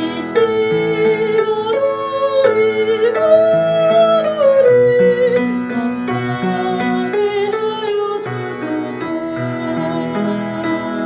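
Music: a Catholic hymn sung in several parts over piano accompaniment, in slow sustained chords with a wavering melody on top.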